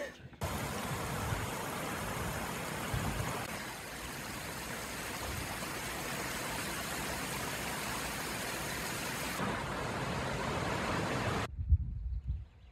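Shallow river rushing over rocks: a steady, even hiss of running water that cuts off suddenly near the end, leaving a low rumble.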